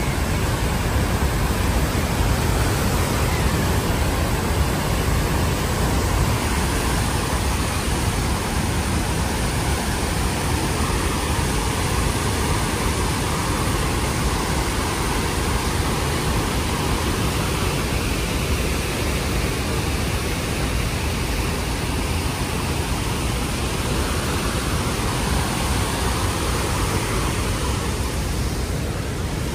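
Waterfall plunging into a canyon: a loud, steady rush of falling water.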